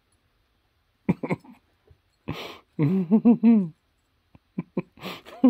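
Basset hound puppy vocalizing while tugging a rope toy: short grumbles, then a run of four quick yowls that rise and fall in pitch around the middle, with a few light clicks near the end. The puppy is getting mad in play.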